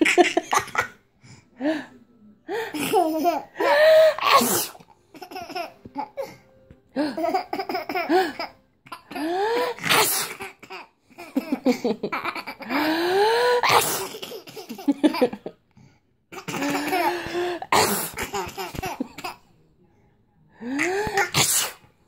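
A baby laughs in repeated bursts of squealing belly laughs, set off by an adult's repeated fake sneezes.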